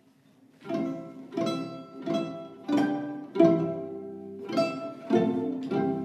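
Solo violin playing a slow tune of about eight separate, sharply started notes that ring out, coming in just under a second in after near silence.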